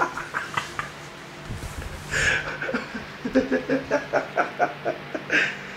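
Stifled laughter: a sharp breath about two seconds in, then a run of short, rhythmic chuckles through the second half.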